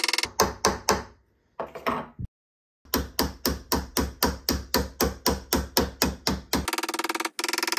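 Small jeweller's hammer tapping the hinge end of a sterling silver hoop earring held against a bench vise, closing the hinge: a quick run of taps, a brief break, then a steady run of about four taps a second.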